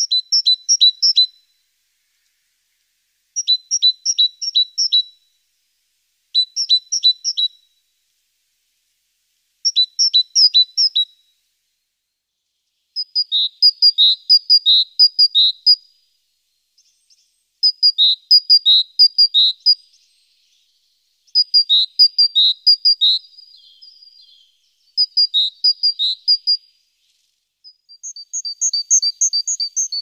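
Great tit singing: repeated phrases of quick two-note units, a higher and a lower note alternating, each phrase about a second and a half long and coming roughly every three seconds. The bird changes song variant partway through and again near the end.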